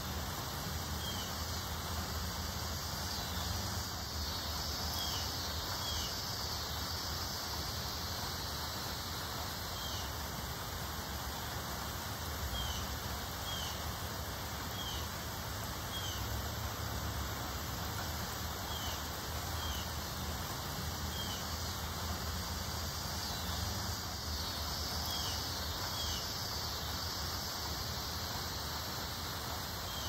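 Steady rustle of wind through tree foliage, with a bird giving short high chirps every second or two.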